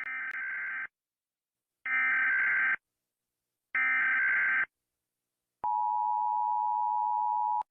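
Emergency Alert System tones: three buzzy data bursts of about a second each, a second of silence between them, the header that opens an EAS alert, followed about five and a half seconds in by a steady, continuous attention tone.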